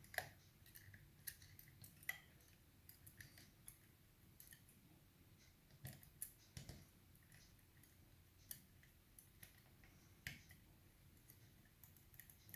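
Faint, irregular metallic clicks and scrapes of a wire pick and tension tool working the levers inside an Asec five-lever mortice lock.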